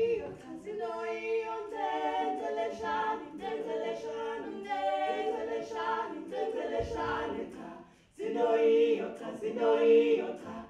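A small group of voices singing a cappella in harmony, on held notes, with a brief break late on before the singing starts again.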